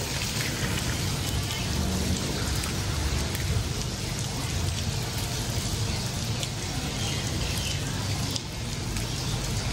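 Steady rain falling on a wet street, with a low rumble underneath.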